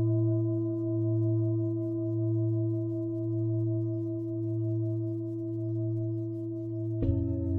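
Lingam singing bowl ringing with a long sustain and slow, regular beating that swells and fades about once a second. About seven seconds in, the bowl is struck again and a fresh, brighter ring begins.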